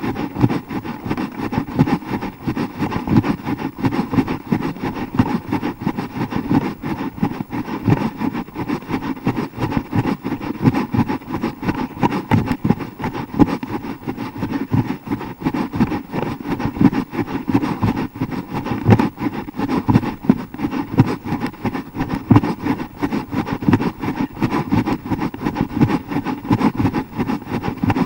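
Wind rushing and buffeting over a handheld YI 4K+ action camera's microphone while running, with a dense stream of irregular knocks as the camera jostles with each stride.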